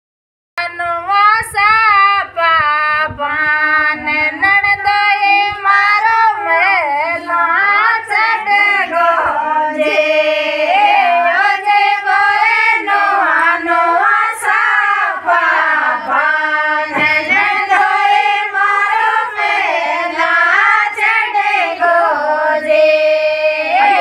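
Women singing a Shekhawati (Rajasthani) folk song, a nandoi geet, in unaccompanied voices that start about half a second in.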